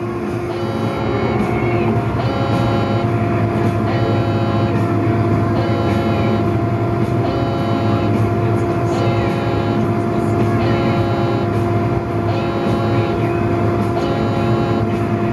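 Crane engine running steadily as a heard from inside the cab, with a steady whine over it and an electronic warning beep repeating about once a second while a suspended load is hoisted.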